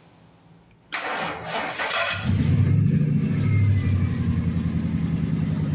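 Ford F-150 engine being cranked over by the starter for about a second, then catching and settling into a steady, even idle, running smoothly now that its misfire has been repaired.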